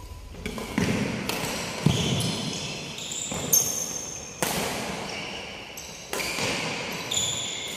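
Badminton rally: sharp racket smacks on the shuttlecock, about eight or nine in quick succession, echoing in a large hall, with short sneaker squeaks on the wooden court floor between them.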